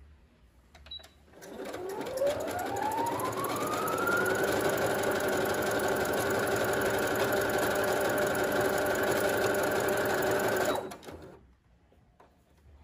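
Computerized household sewing machine stitching a test seam. About a second and a half in, it speeds up, its whine rising over about three seconds. It then runs steady for about six seconds and stops abruptly.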